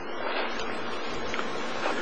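Steady, even rushing noise with no clear tone or rhythm.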